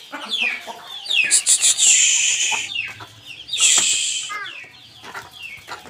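Chickens and roosters clucking and squawking in several short, loud bursts, with quick falling calls between them, as they are let out of their pens.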